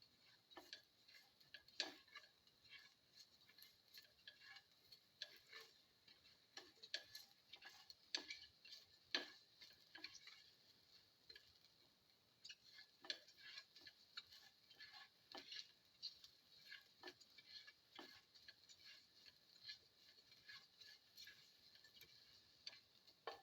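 Faint, irregular clicks and ticks, a few a second, from spiced shallots and garlic sautéing in a little oil in a pan.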